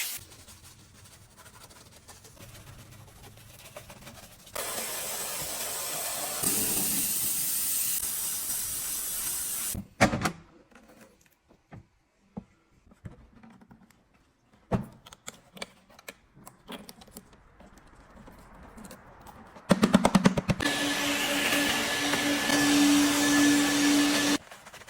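A hissing detailing machine running in two stretches of several seconds each, the second with a steady hum under the hiss, with quieter stretches of scattered clicks and handling knocks between.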